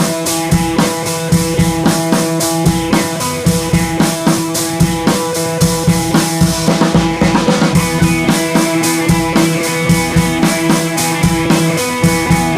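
Background music with a steady drum beat and sustained pitched notes.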